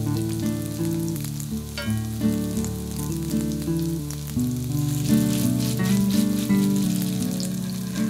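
Tofu-and-vegetable patties sizzling and crackling in hot oil in a frying pan, over background music.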